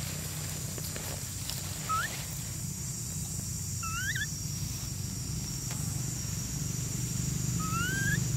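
Outdoor forest ambience: a steady high-pitched drone and a low hum, with three short rising whistle-like calls about 2 seconds in, about 4 seconds in and near the end.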